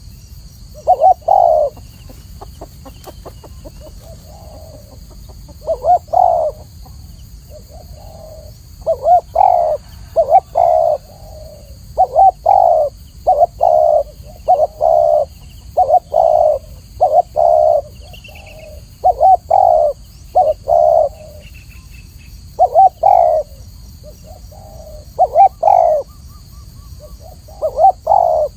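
Spotted dove (Spilopelia chinensis) cooing: groups of short coos repeated over and over, with brief pauses between phrases.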